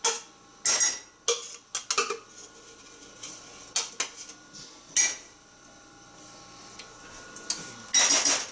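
A plastic blending cup and a spoon knocking and clinking against a glass measuring cup as blended strawberry purée is tapped and scraped out: a handful of sharp, irregular clinks, then a longer scraping clatter near the end.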